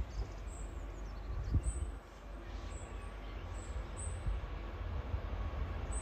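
Diesel freight locomotive approaching, its engine a steady low rumble. Birds chirp faintly over it.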